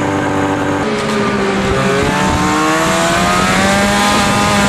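Snowmobile engine running, its pitch climbing steadily through the second half as it speeds up.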